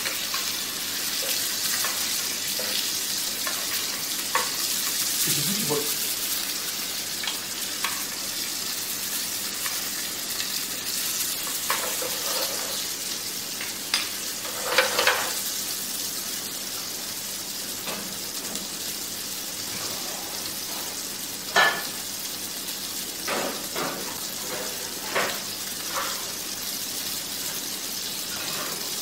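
Sea bass fillets frying in a pan with a steady sizzle, with now and then a short clink or scrape of a utensil against the pan.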